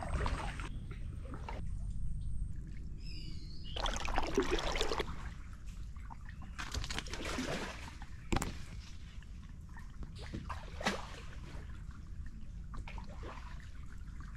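Kayak paddle strokes in calm water: irregular splashes as the blade dips and water trickling off it, with a single sharp knock a little past eight seconds in.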